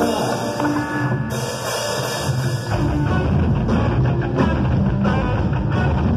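Live rock band playing: electric guitars, bass and drum kit. A bright cymbal wash opens it, and the bass and drums come in heavier about three seconds in.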